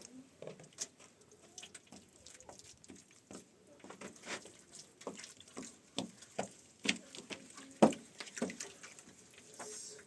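Irregular light knocks and clicks, the sharpest about eight seconds in.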